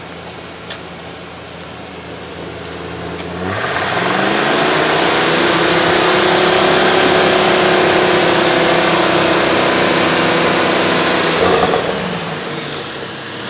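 Chevrolet square-body pickup's engine idling, then revved up quickly about three and a half seconds in. It is held at high revs for about eight seconds, then let fall back to idle near the end.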